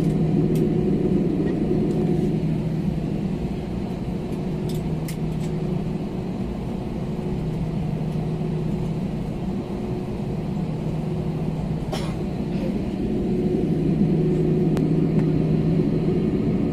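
Steady low cabin drone of a jet airliner waiting on the ground with its engines at idle, heard from inside the passenger cabin, a low hum with a couple of held tones. A few faint clicks, the clearest about twelve seconds in.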